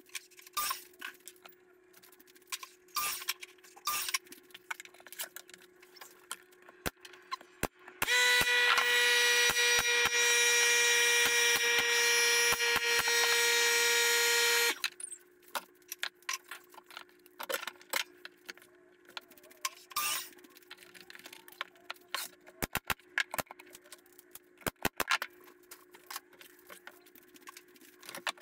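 Pallet-wood boards being handled and knocked into place, a run of scattered sharp clicks and knocks. About eight seconds in, a shop machine's electric motor starts up, runs steadily and loudly for about seven seconds, and stops abruptly.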